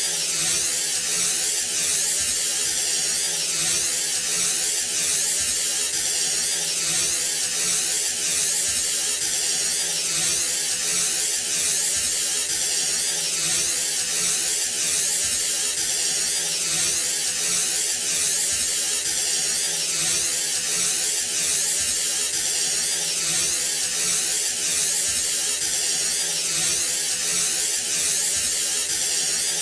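Aerosol spray can hissing in one long unbroken spray, pulsing slightly at a regular pace, with a steady hum beneath it.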